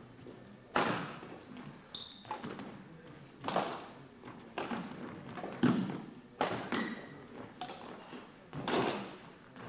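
Badminton rally: racket strings striking the shuttlecock in turn, a sharp hit about every second with hall echo, and a couple of brief squeaks between hits.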